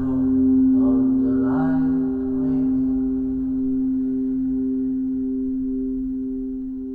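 Quartz crystal singing bowl ringing on with a steady low tone and a wavering upper tone, slowly fading.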